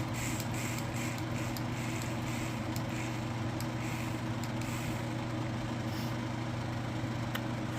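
A steady low electrical hum with a few faint clicks.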